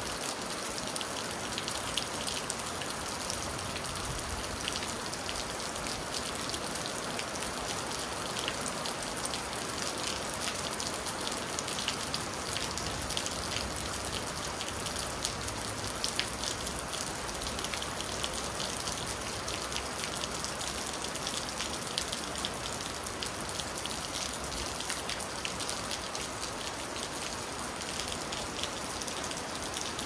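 Steady rain falling: an even hiss thick with many small, separate drop hits.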